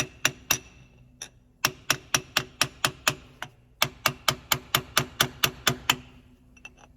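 Hammer blows on a chisel against the side of a snapped steel bolt in a granulator's knife bed, driving it round to unscrew it. The sharp, ringing metal-on-metal strikes come in two fast runs of about four to five a second, with a short pause a little past halfway, and stop about a second before the end.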